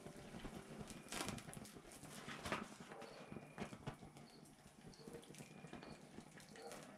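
A hot steel knife blade, forged from an old bearing, being quenched in a pot of oil: the oil sizzles and bubbles faintly around the blade, with a few sharp crackles and splashes, the loudest about a second in and again about two and a half seconds in.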